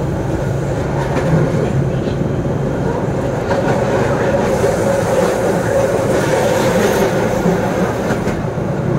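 Keihan Ishiyama Sakamoto Line tram running along the track, heard from inside behind the driver's cab: a steady rumble of wheels and motors. A higher whine and hiss grow louder through the middle seconds and ease near the end.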